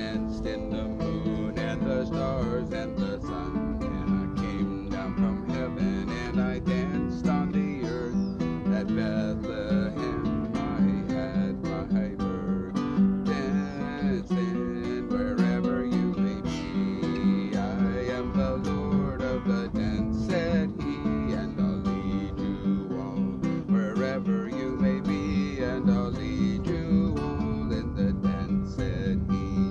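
Acoustic guitar playing an instrumental passage, with many quick strokes and notes at an even level throughout.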